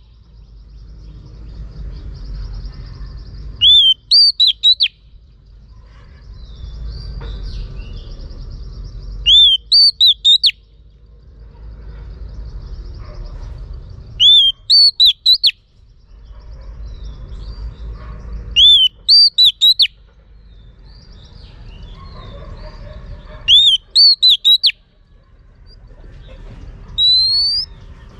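A female oriental magpie-robin (chích chòe than mái) calling: five loud phrases of about four sharp, swooping whistled notes each, roughly every five seconds, with rising notes near the end. This is the call keepers play to excite male magpie-robins into singing.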